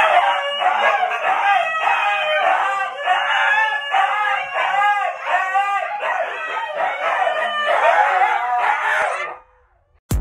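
Several huskies yowling and howling at one another in overlapping, rising-and-falling calls. The calls break off about a second before the end.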